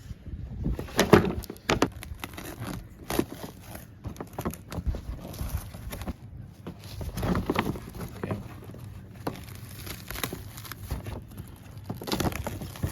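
Packaging being handled and opened: irregular knocks and clicks with crinkling and rustling.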